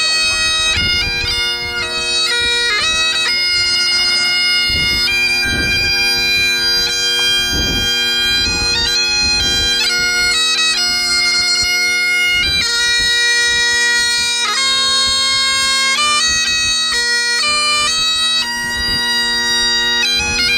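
Great Highland bagpipes played solo: the drones hold one steady chord while the chanter plays a melody over them, without a break.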